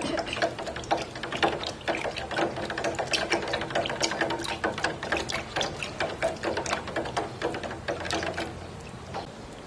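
A stirring stick clicking and tapping against the inside of a plastic bottle of water as it is stirred hard, in rapid irregular clicks, mixing a chlorella green-water culture of rice wash and fertilizer.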